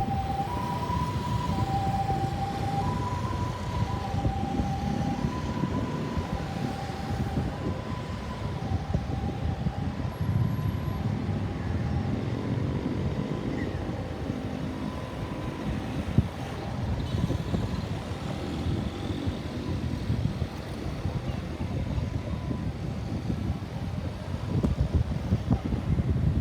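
Ambulance siren in a two-tone hi-lo pattern, a higher and a lower note alternating steadily. It fades as the vehicle moves away, growing faint after about ten seconds, over a steady low rumble.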